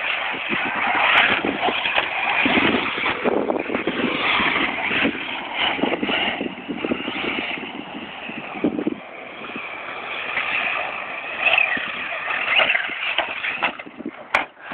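Two brushless electric RC cars, an HPI Savage Flux monster truck and a modified OFNA buggy on a 22.2 V (6S) pack, running hard on a dirt track: a motor whine that rises and falls as they accelerate and slow, mixed with tyre and gravel noise. A single sharp click comes near the end.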